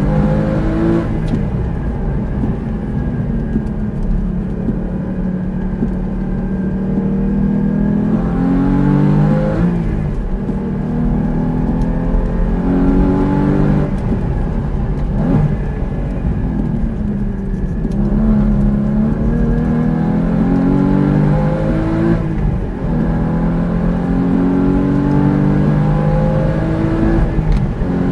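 Porsche sports car engine heard from inside the cabin, pulling hard on track: the engine note climbs steadily for several seconds, then drops, about five times over, as the car is driven through a sequence of corners and straights.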